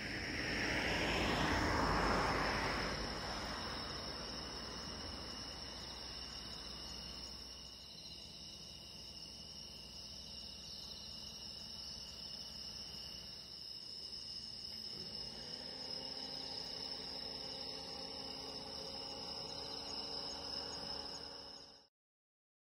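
Crickets and other night insects trilling steadily in a high-pitched chorus. A passing vehicle's rushing noise swells and fades over the first few seconds, and a low steady hum joins about two-thirds of the way through; the sound cuts off suddenly near the end.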